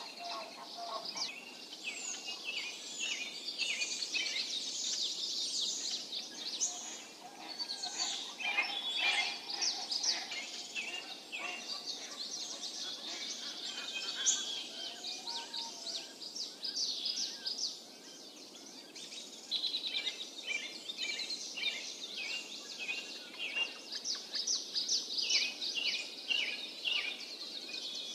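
Yellow-eyed babbler nestlings begging with rapid, high-pitched chirps while the adult feeds them at the nest, pausing briefly twice.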